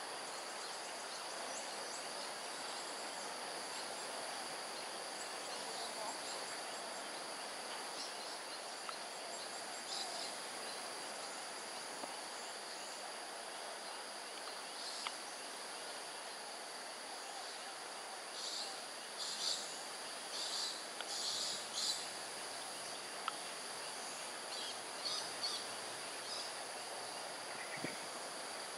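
Steady high-pitched drone of forest insects holding two constant tones, with scattered short high chirps, a cluster of them about two-thirds of the way through.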